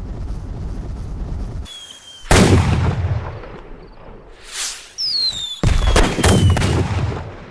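Fireworks: a low steady rumble, then a whistle and a loud aerial shell bang about two seconds in, dying away slowly. Later a rising whoosh, several falling whistles, and two more loud bangs close together near the end.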